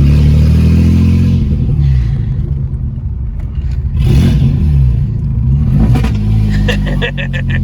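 A straight-piped V6 car engine with its exhaust cut off, running while driven; its note rises under throttle and falls back several times. There is a brief sharp clatter about four seconds in.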